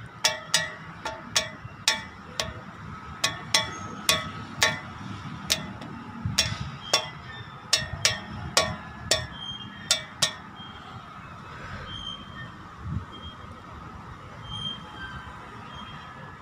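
A run of sharp metallic clinks that ring briefly, irregular at about two a second, stopping about ten seconds in. After that come a few faint, short high chirps.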